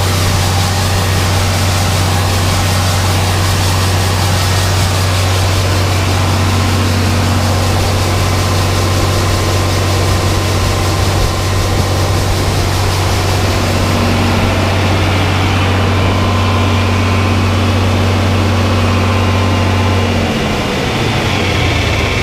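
A heavy engine running steadily at a fast, even speed, with a strong low hum, then slowing down about twenty seconds in.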